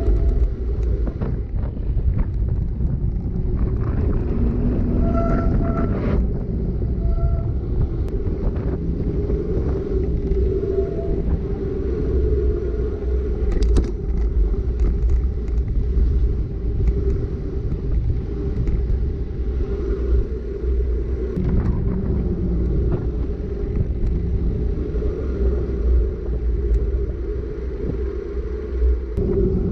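Wind rushing over a GoPro's microphone and the rumble of mountain-bike tyres rolling fast downhill on asphalt, a steady deep noise. A few short high squeals sound in the first several seconds, and a brief clatter of clicks comes about halfway through.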